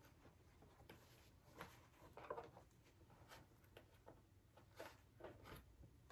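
Near silence with several faint, brief rustles of needle and thread being drawn through fabric while the back of a hoop pincushion is laced.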